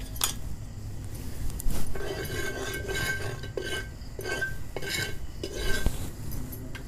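Metal spatula scraping around a flat griddle pan (chatu), spreading a little fresh oil over it. There is a light clink just after the start, then a series of scraping strokes from about two seconds in, the longer ones with a thin ringing tone of metal on metal.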